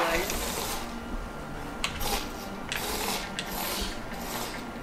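Remote-control ladybug robot toy's small electric motor and plastic walking-leg gears buzzing as it scuttles over carpet. It runs steadily for about the first second, then in short stop-start bursts with a few clicks.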